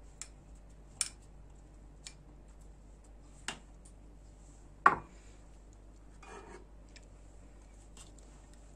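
A plastic spoon tapping and scraping against bowls as sliced black olives are spooned into a salad: scattered light clicks, the loudest a knock about five seconds in, with a soft rustle of food shortly after.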